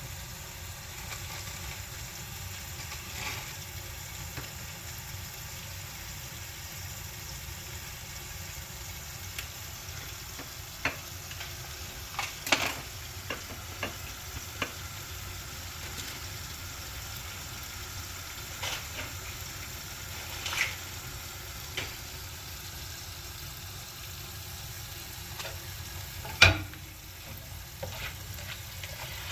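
Chilaquiles (tortilla chips in salsa) sizzling steadily in a frying pan as they are stirred, with scattered sharp knocks of the utensil against the pan. The loudest knock comes near the end.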